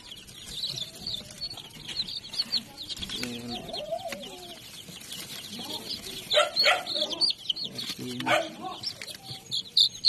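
A crowd of young chicks peeping continuously in short, high calls as they are handled into plastic crates, louder around six to seven and again about eight seconds in.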